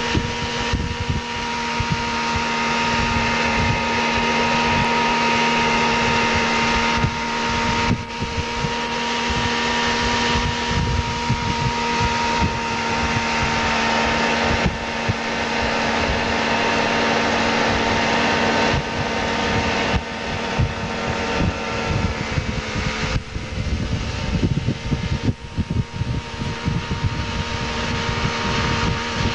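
Tow boat's engine running steadily at speed, a constant drone, with wind buffeting the microphone.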